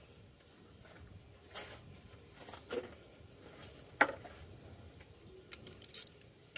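Scattered clicks and knocks of hand tools on the alternator's mounting bolts as they are being taken out, with one sharp knock the loudest about four seconds in.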